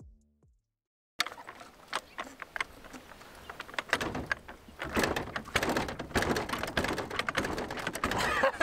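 Hydraulic floor jack being handled and set under a car: irregular metal clanks and rattles from the jack and its handle, with scraping over gravel. It starts suddenly about a second in and gets busier from the middle on.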